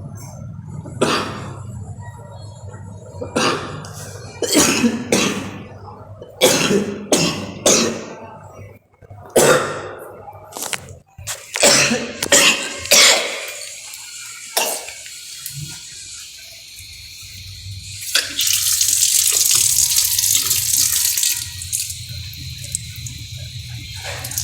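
A person coughing repeatedly in fits, many harsh coughs in quick runs over roughly the first fifteen seconds. Near the end comes a steady hissing rush lasting about three seconds.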